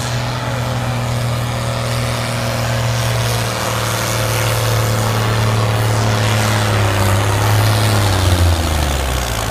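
Pulling tractor's diesel engine running flat out under load with a steady high note. The pitch sags and drops away near the end.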